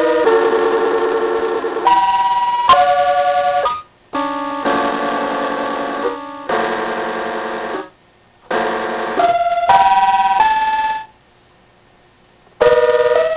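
Circuit-bent electronic keyboard sounding random held chords of buzzy, organ-like tones that switch abruptly every second or two, some warbling, with sudden clicks and several complete cut-outs between them.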